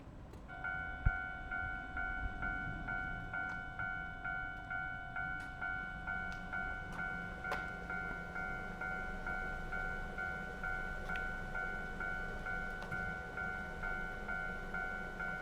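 Japanese railway level crossing warning bell, starting about half a second in and ringing in an even ding about twice a second.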